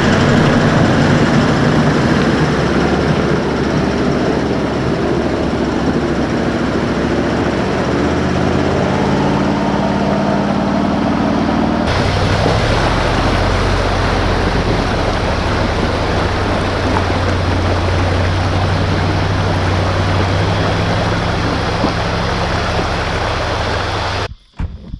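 A vehicle engine running under way, its pitch sliding gradually lower over the first dozen seconds. About halfway through it switches abruptly to a steadier, lower drone, then cuts off sharply near the end.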